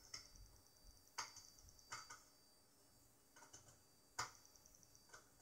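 A few faint, scattered light clicks of small screws and a magnetized screwdriver tip being fitted into a mixer's metal-framed fader-bank circuit board, the loudest click about four seconds in.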